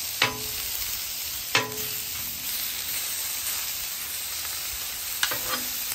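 Raw chicken strips sizzling in oil on a hot Blackstone flat-top griddle as they are pushed off a bowl with a metal spatula. Three sharp knocks with a brief ring sound from the spatula: one right at the start, one about a second and a half in, and one near the end.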